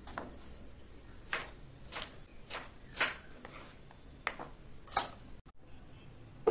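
Chef's knife slicing a peeled raw mango on a wooden cutting board, the blade knocking against the board about eight times at an uneven pace, loudest about five seconds in.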